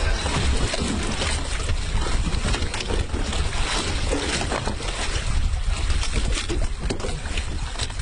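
Wind buffeting the microphone on a boat at sea, with water noise: a steady rush, heaviest in the lows, broken by many small pops and knocks.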